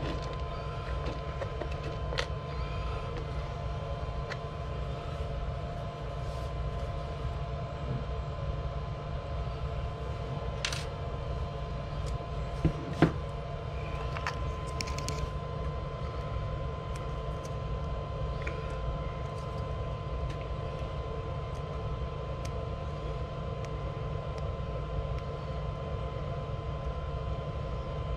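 Steady low machine hum with a faint steady whine, plus scattered light clicks and taps of hands handling wires and plastic parts on an RC truck chassis, the loudest pair about 13 seconds in.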